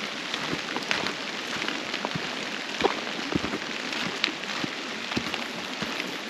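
Steady rain falling, with single drops tapping close by at irregular moments.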